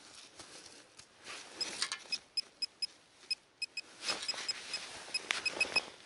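Handheld metal-detecting pinpointer beeping in short, irregular high pips as it is worked through the dug soil, signalling buried metal close by. Under it, gloved hands rustle and scrape in the earth.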